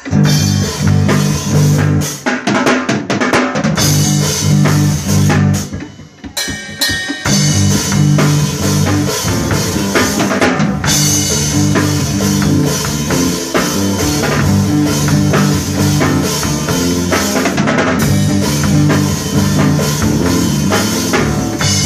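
Live rock band playing an instrumental passage on drum kit and guitars, with a steady beat. The band thins out briefly about six seconds in, then comes back in full.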